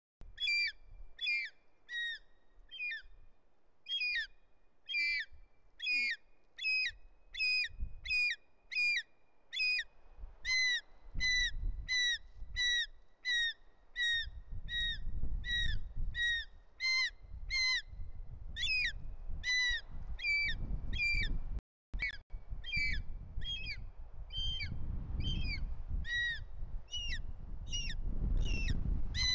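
Juvenile short-toed snake eagle screaming over and over in short, evenly spaced downward-slurred calls, about one and a half a second: begging for the snake its father is about to deliver. A low rumble builds under the calls in the second half.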